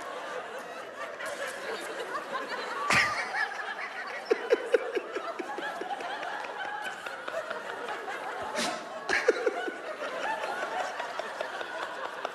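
Audience laughing steadily, with one voice's loud ha-ha-ha standing out about four seconds in and again near nine seconds, and a sharp thump about three seconds in.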